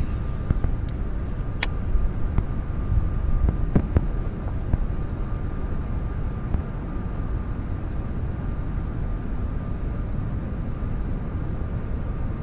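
Steady low wind rumble on the microphone of a handheld camera at the water's edge, with a couple of sharp clicks in the first few seconds.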